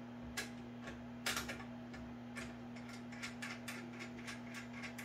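Scattered light metal clicks and ticks from the Tormek T8 axe jig and its support bar being handled and adjusted to lower the grinding angle, over a steady low hum. The clicks come irregularly, bunching up in the second half.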